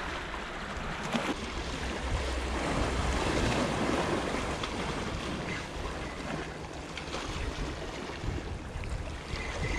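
Sea surf washing against shoreline rocks, with wind buffeting the microphone as a low rumble.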